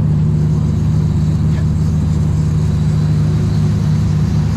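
Charter fishing boat's engine running steadily, a loud, even low hum with no change in pitch.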